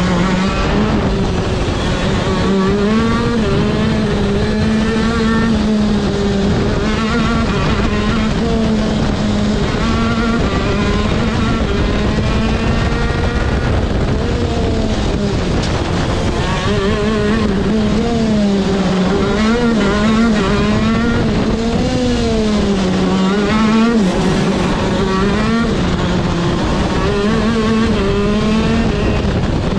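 125cc two-stroke KZ shifter kart engine at racing speed, heard from the driver's seat, its pitch repeatedly climbing and dropping as the kart accelerates and slows through the corners.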